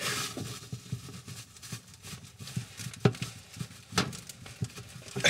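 Phillips screwdriver straining against a tight screw inside an oven cavity: faint scraping and rubbing with a few sharp metal clicks and knocks, the clearest about three and four seconds in.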